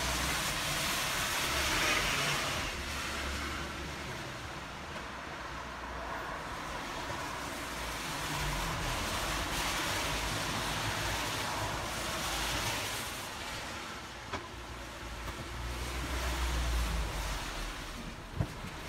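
Cars passing on a wet road, their tyres hissing on the wet surface: one pass swells at the start and another about ten seconds in, with a lower rumble building near the end. Two short clicks near the end.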